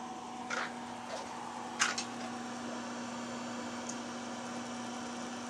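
Open switching power supply humming steadily. It clicks a few short times in the first two seconds as the heated bed's MOSFET switches the bed's load on and off.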